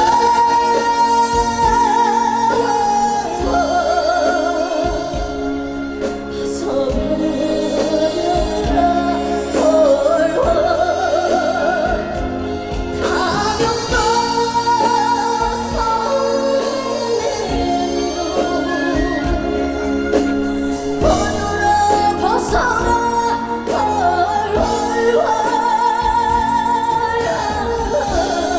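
A woman singing a trot song with heavy vibrato over a band accompaniment, phrase after phrase with short breaks between lines.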